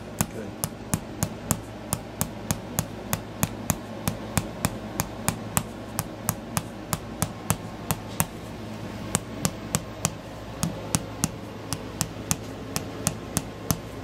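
A mallet tapping a metal chiropractic adjusting instrument held against the back, about three sharp taps a second, with a brief pause about eight seconds in: percussive adjustment of a rib head and the area around it.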